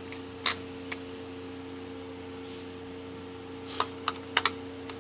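Small sharp clicks and taps of a precision hobby knife being handled while its blade is taken out and fitted back: one crisp click about half a second in, then a quick cluster of clicks near the end, over a steady low hum.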